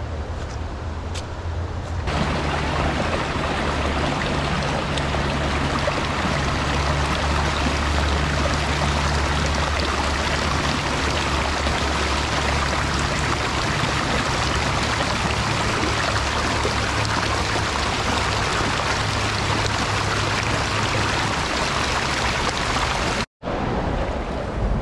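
Shallow river rushing over rocks in a riffle: a loud, steady rush of water that starts suddenly about two seconds in and cuts off shortly before the end.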